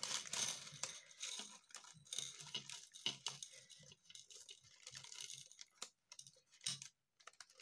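Clear plastic bag crinkling as small bone beads are shaken out of it, the beads rattling and clicking against each other and onto a dish in a run of many light clicks.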